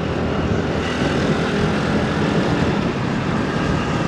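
Honda Navi's small single-cylinder engine running steadily through its exhaust, with even road and traffic noise around it.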